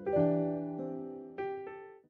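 Background piano music: a few chords and notes struck and left to ring, fading out at the end.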